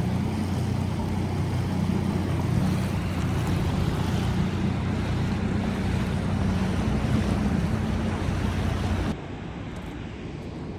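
Small outboard motor running steadily over rushing water, with wind on the microphone. About nine seconds in the sound drops abruptly to a quieter wash of water and wind.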